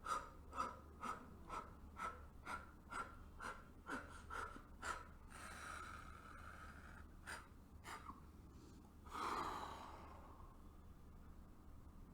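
A woman doing Mukha Bhastrika, the candle-blowing breath: a rapid run of short, forceful puffs of breath out through the mouth, about two a second, emptying the lungs. After a longer breath come two more puffs, and then one long breath about nine seconds in.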